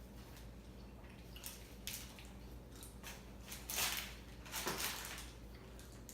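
Close-up eating and food-handling noises: a few short crackling noises over a low room hum, the loudest cluster about four seconds in.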